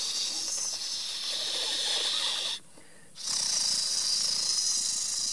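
A man imitating a cicada's call with his mouth: a steady, high hissing buzz. It breaks off sharply for about half a second some two and a half seconds in, then starts again.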